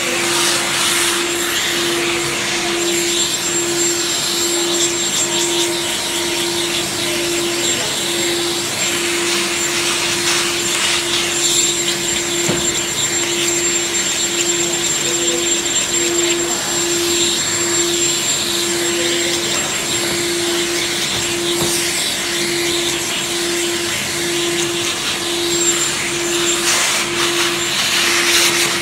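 Steady blower noise from a flatbed cutting plotter's vacuum hold-down system, with a low hum pulsing on and off a little faster than once a second.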